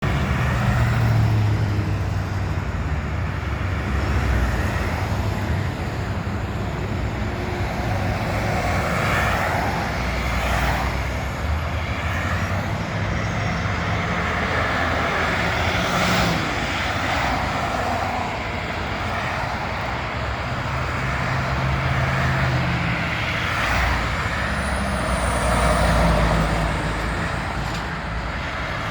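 Heavy demolition machinery running steadily with a low engine rumble, with a few sharp knocks or crashes, the clearest about ten and sixteen seconds in.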